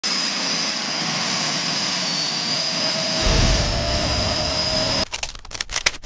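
Jet engine on afterburner: a steady roar with a high whine and a lower tone running through it, and a deep boom coming in about three seconds in, where it is loudest. About five seconds in the roar cuts off, and a quick irregular run of sharp clicks follows: a camera memory card write error.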